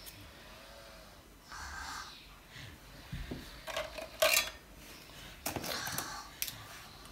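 Pens clinking and rattling against a metal tin as they are handled and picked out: two clusters of sharp clicks, about halfway through and again near the end. A short breath of a sniff comes before them.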